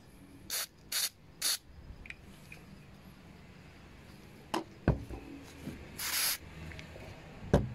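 Aerosol can of carburetor cleaner spraying into a trimmer carburetor's passages: three quick spurts about half a second apart, then one longer spray about six seconds in. A few sharp knocks come between them.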